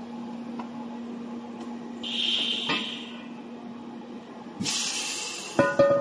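A steady low hum with two short bursts of hissing, the second louder and longer. Near the end, plucked guitar-like notes begin.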